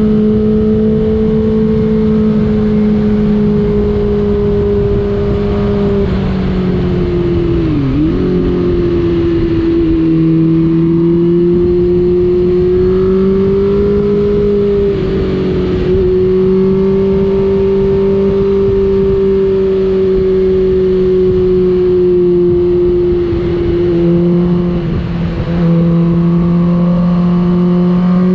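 Suzuki GSX-R1000 K6's inline-four engine running steadily at high revs under way. Its pitch holds fairly even, dips briefly about eight seconds in, steps down around ten seconds in and again near twenty-four seconds, and rises back near the end.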